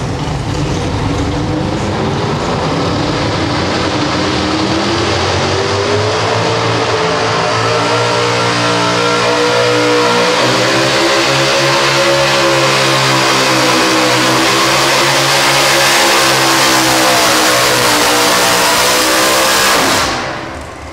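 Supercharged engine of a pro stock four-wheel-drive pulling truck at full throttle under load. Its pitch climbs over the first ten seconds and then holds high and steady, before the sound drops away suddenly near the end as the pull ends.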